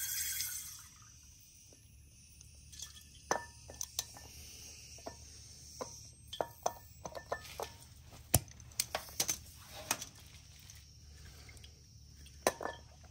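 A short hiss of compressed air at the WD-40 can's valve, then irregular metallic clicks and taps as the filler tube is worked out of the valve and the metal aerosol can is handled.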